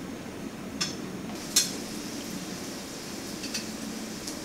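Metal tongs clinking against a plate and the wok as wontons are picked up and laid in hot oil: four light clinks, the second the loudest, over a steady low hum.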